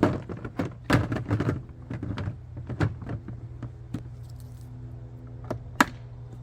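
Hard resin storage boxes being handled: a run of sharp clicks, knocks and clatter in the first couple of seconds, a few scattered knocks, then one loud click near the end, over a steady low hum.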